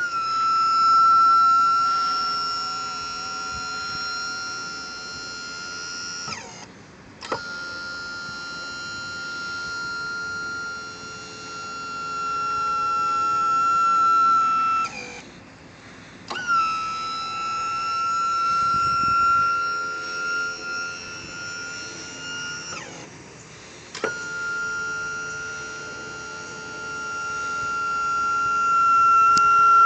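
Electric hydraulic pump of a boat jack plate whining steadily in four runs of about six seconds each, with short pauses between them. Each run starts with a click. The runs fit the plate being cycled up and down.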